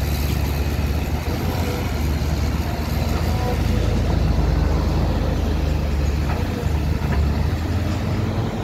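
Caterpillar 320L hydraulic excavator's diesel engine running steadily under load as the machine digs, swings and dumps a bucket of soil, a little louder around the middle of the stretch.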